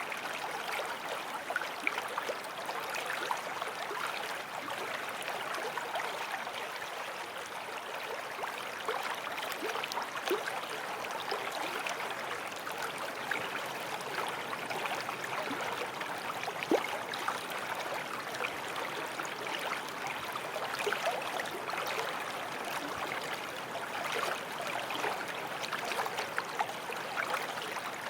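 Small forest stream flowing over stones: steady rushing and babbling water with many small splashes and gurgles.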